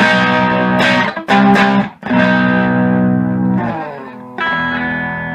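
Electric guitar chords strummed through a homemade tube guitar amplifier, a new chord about every second. Near the end the pitch slides down and a chord is left ringing.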